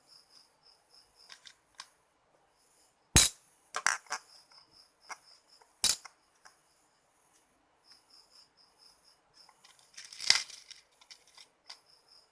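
Sharp clicks and snaps: three loud single ones, then a brief cluster near the end. Under them runs a faint, high chirping that repeats about four times a second.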